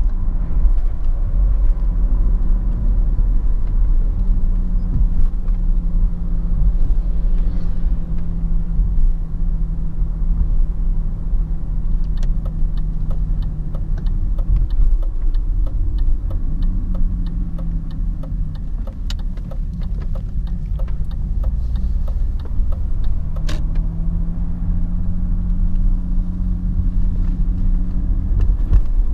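In-cabin sound of a BMW 530d (E39) on the move: its straight-six turbodiesel and the tyres make a steady low rumble. The engine hum fades out for a while around the middle and comes back in the last few seconds.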